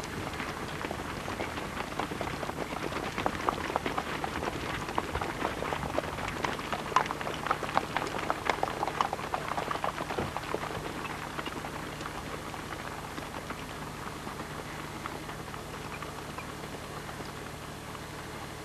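Hoofbeats of Icelandic horses tölting past on a dirt track: a rapid, uneven patter of clicks that grows louder, then fades after about ten seconds as the horses move away, over a steady low hum.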